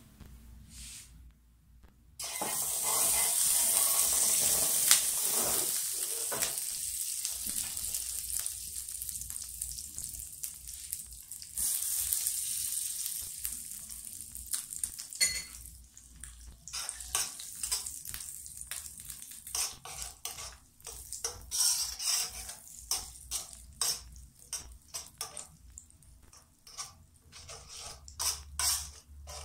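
Butter sizzling in a hot steel wok. The hiss starts suddenly a couple of seconds in and fades slowly as the butter melts. In the second half a metal spoon scrapes and clinks against the wok as the melted butter is stirred.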